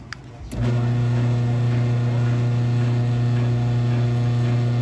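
8155W garage door opener motor hums steadily. It is preceded, about half a second in, by a click as the motor starts up again.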